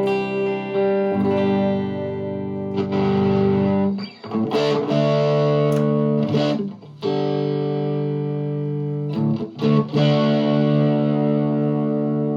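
Electric guitar played direct into a Vox MV50AC amp with no overdrive pedal in the chain: a handful of chords strummed and left to ring, with a new chord struck every couple of seconds.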